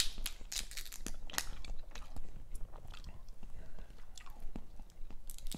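Close-miked mouth sounds of eating Dungeness crab: wet chewing and lip smacks, with irregular sharp clicks and crunches.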